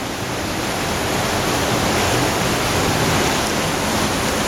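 Cave stream in near-flood conditions, water pouring and swirling at a spout: a loud, steady rush of water, rising slightly about a second in.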